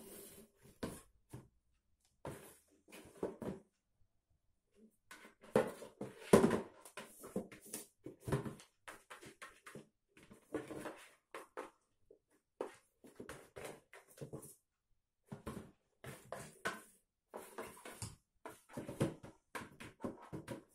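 A cat batting and pushing a small cardboard box across a laminate floor: irregular scrapes and light knocks of cardboard on the floor, loudest about six seconds in.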